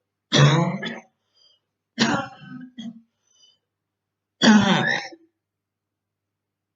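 A woman with bronchitis coughing and clearing her throat in three bouts of about a second each, roughly two seconds apart.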